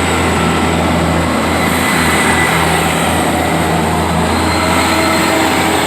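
GWR Class 158 diesel multiple unit passing close by, its diesel engine running with a steady low hum over loud rushing wheel-and-rail noise.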